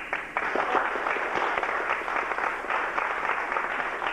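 Audience applauding, many hands clapping at once; the applause breaks out just before and carries on steadily.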